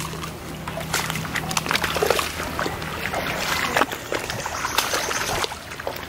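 Feet wading through a shallow, rocky stream: water sloshing and splashing with each uneven step, over the running water of the stream.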